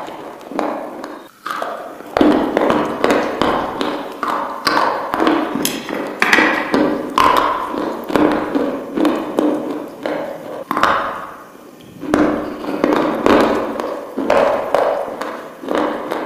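Close-up crunching and chewing of crisp food taken from a spoon: a quick string of loud crunches, a few each second, with a short lull about three-quarters of the way through.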